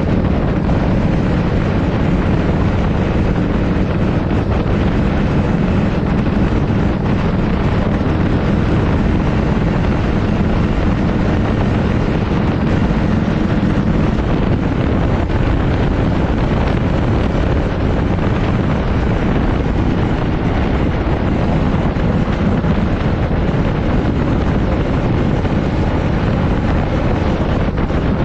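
Harley-Davidson Shovelhead V-twin engine running at road speed on a freshly rebuilt top end, under heavy wind noise on the microphone. The low engine note shifts about halfway through.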